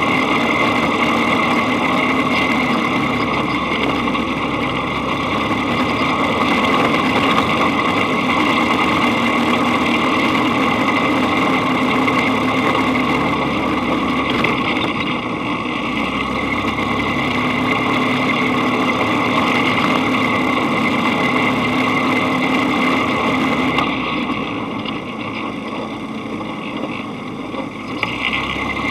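Dune buggy engine running steadily as the buggy drives along a sandy beach track, heard from on board the buggy. The sound drops a little in level about four-fifths of the way through.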